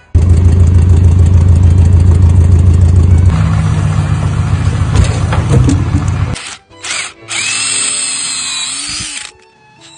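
Power tool running steadily and loudly with a low, even hum; its pitch shifts about a third of the way in, and it stops after about six seconds. A second, shorter run of tool noise follows near the end.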